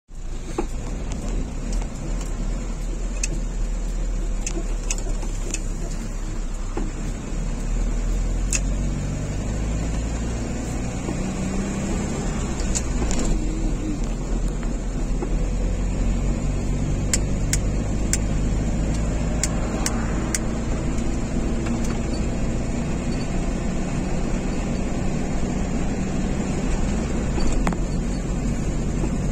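Car interior noise while driving: a steady low rumble of engine and tyres on the road, the engine note shifting up and down, with a few light clicks scattered through it.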